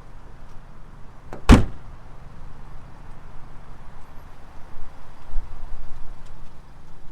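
A 2020 Hyundai Sonata's door being shut: one solid thud about a second and a half in, just after a faint latch click.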